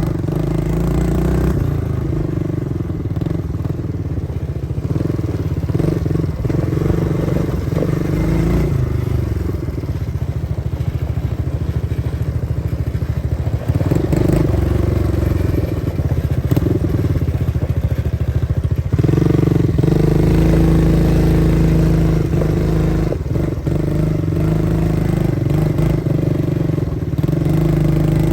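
ATV (quad bike) engine running while riding, its note rising and falling with the throttle and getting louder about two-thirds of the way through.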